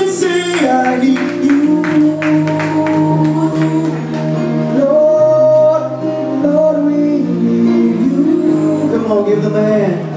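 Male vocalist singing long, drawn-out notes into a microphone, sliding between pitches, over sustained instrumental accompaniment in a slow gospel-style love song.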